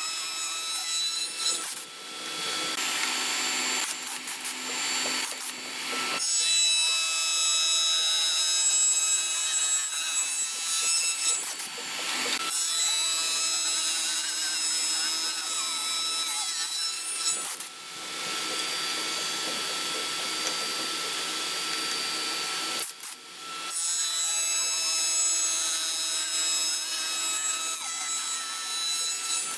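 Spindle moulder running with a steady high whine while its cutter machines notches into the ends of a clamped stack of wooden boards; the rasping cutting noise swells and fades over several passes, with a few abrupt breaks.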